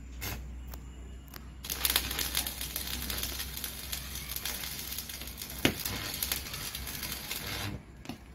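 Electric arc welding on a steel roof truss: a dense, steady crackle and sizzle of the welding arc, starting about two seconds in and stopping shortly before the end, over a low steady hum. A few sharp clicks come just before the crackle starts.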